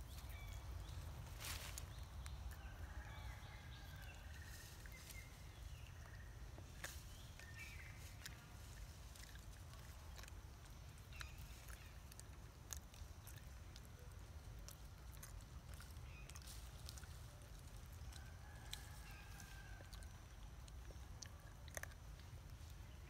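Quiet forest ambience: a steady low rumble like wind on the microphone, scattered light clicks, and a few faint animal calls, a couple of seconds in and again near the end.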